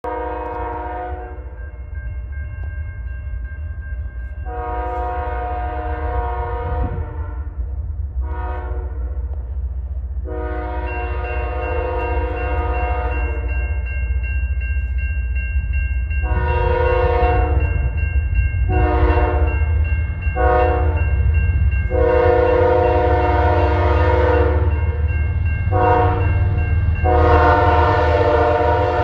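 A CN ES44AC diesel locomotive's air horn sounds a chord in repeated long and short blasts, the grade-crossing warning sequence. It grows louder as the train approaches over a low, building diesel rumble.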